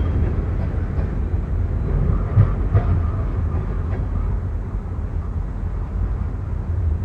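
Freight train cars rolling past: a steady low rumble of wheels on rail, with a few sharp clanks between about two and four seconds in, easing off a little toward the end.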